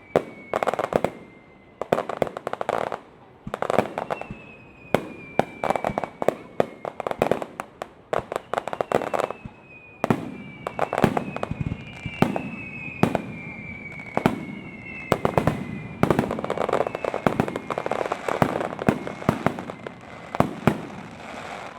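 Starmine fireworks barrage: volleys of sharp bangs and crackling bursts, a cluster about every two seconds, with several high whistles that slowly drop in pitch running through them.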